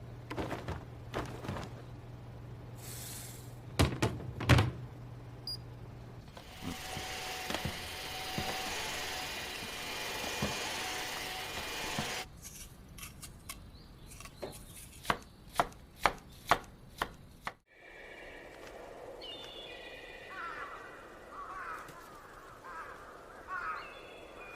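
A string of short anime scene soundscapes. First a low steady hum with a few sharp knocks, then several seconds of even hiss. Then a run of loud sharp knocks, about two a second, and after a sudden cut, high chirping sounds.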